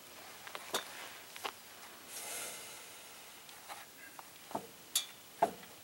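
Sawn boards being shifted and set on the steel bed of a band sawmill: scattered wooden knocks and taps, about six, the loudest near the end, with a short soft scrape about two seconds in.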